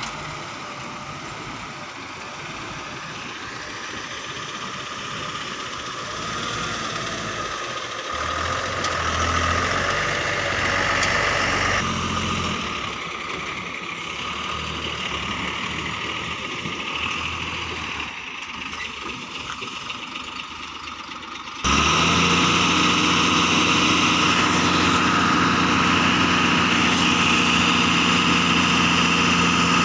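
Diesel engine of a JCB 3DX Plus backhoe loader working, its pitch and loudness rising and falling with the load. About 22 seconds in, the sound jumps suddenly to a louder, steady engine note.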